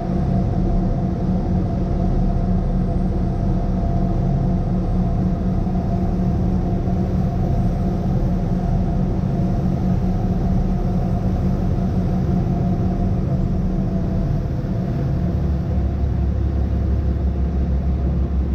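Tour boat's engine running steadily under way, a low drone with a constant hum over a wash of wind and water noise; about fifteen seconds in, the lowest part of the drone deepens and grows stronger.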